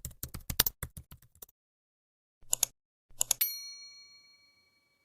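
Quick run of typing keystrokes, then two short clusters of key clicks and a single bell ding that rings out for about a second.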